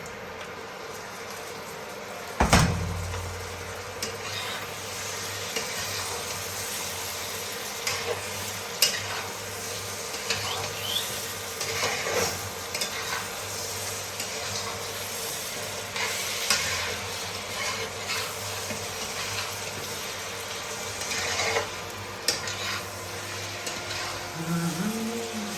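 Goat-head meat tipped into a frying pan of hot oil and spiced onions with a loud thud about two and a half seconds in, then sizzling as it fries while a utensil stirs it, scraping and clicking against the pan.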